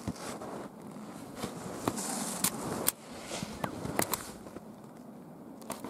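Footsteps crunching through snow at a walking pace, with a few sharp clicks.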